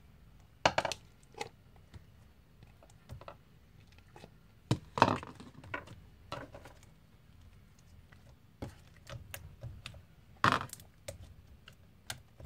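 Hands working sticky glue slime in a bowl: scattered short sticky clicks and squelches, a few of them louder, as the slime is still sticky and just starting to come away from the bowl.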